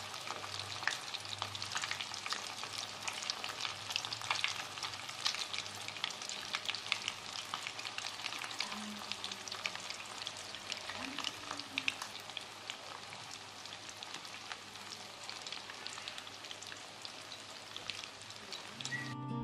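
Crumb-coated fish pieces frying in hot oil in a stainless steel pan: a steady sizzle thick with sharp crackles and pops, easing slightly toward the end as the coating browns.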